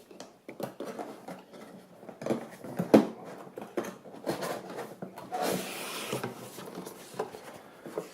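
Cardboard box and packaging being handled and opened: scattered taps and knocks, a sharper knock about three seconds in, and a longer sliding rustle about halfway through.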